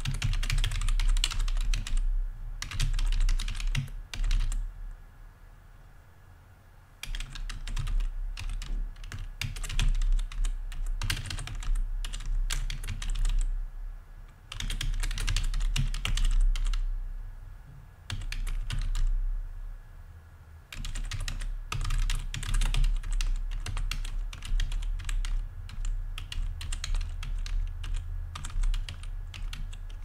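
Typing on a computer keyboard: runs of fast key clicks broken by short pauses, the longest a few seconds after the start and again a little past the middle.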